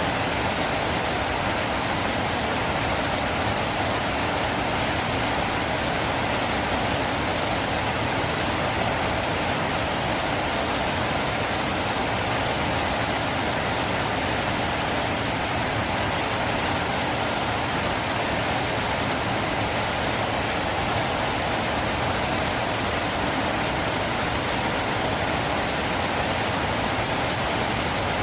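River water rushing steadily, an even, unbroken roar of flowing water.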